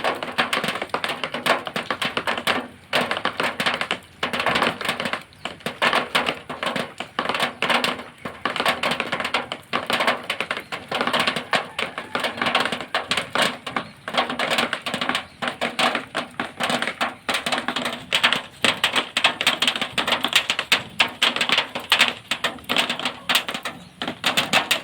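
Rain falling on zinc sheeting: a dense, rapid tapping of drops on the metal that swells and eases in waves.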